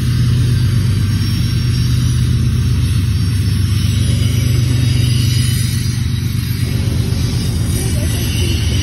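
Freight train's hopper cars rolling past close by: a loud, steady rumble.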